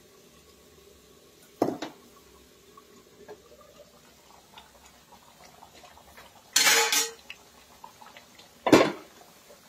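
Glass pot lid and stainless steel kadhai clanking as the lid is handled and taken off the pan: three sharp clanks, about two seconds in, about seven seconds in (the longest, ringing briefly) and near the end.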